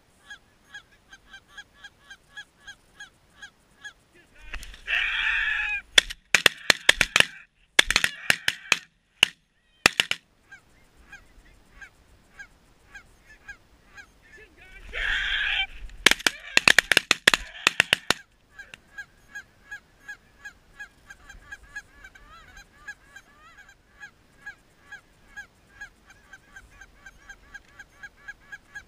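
Goose honking: a steady run of short honks about three a second. It is broken twice, about 5 and 15 seconds in, by a loud burst of calling, a long honk followed by a quick string of sharp clucks.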